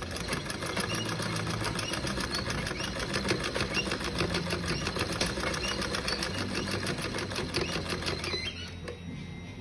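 Sewing machine stitching fabric: a rapid, even clatter of needle strokes that stops about eight and a half seconds in.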